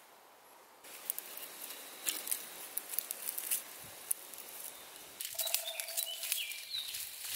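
Dry, dead plant stems crackling and rustling as a hand grips and pulls at them, with sharp snaps among the rustle. A bird chirps a few times near the end.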